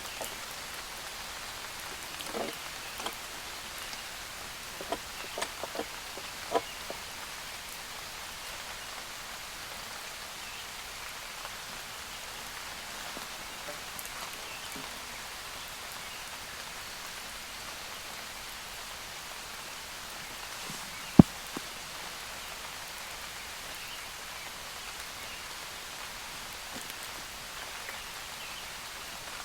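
Steady moderate rain falling in a forest. A few light knocks in the first several seconds, and one sharp knock a little past twenty seconds in.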